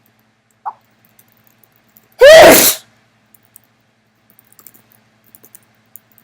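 A person sneezing once, loudly, for about half a second.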